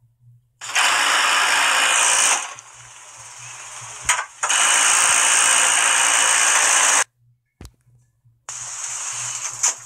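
A small motorised machine running with a loud steady whirring hiss in two spells of about two and three seconds, with a quieter stretch and a short click between them, then stopping and starting again more softly near the end.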